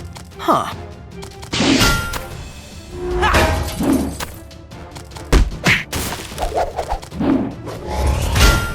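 Added sound effects of thuds, whacks and shattering crashes, one every second or two, over background music.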